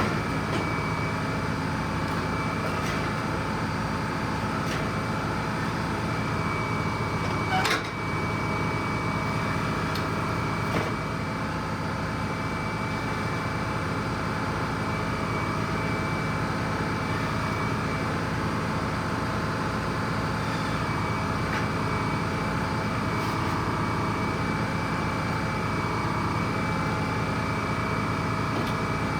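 Sawmill powered by an old bus engine, the engine running steadily under a steady high whine, with two sharp knocks about 8 and 11 seconds in.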